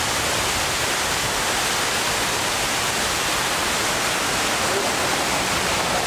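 Man-made waterfall cascading down a stepped rock face: a steady rush of falling water that does not let up.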